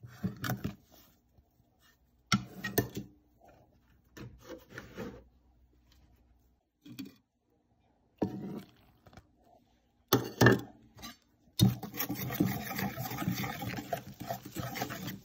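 Dry pancake mix scooped and tipped from a plastic measuring cup into a stainless steel bowl, heard as several short separate scrapes and pours. About two thirds of the way in, a whisk starts stirring fast and without a break in the steel bowl.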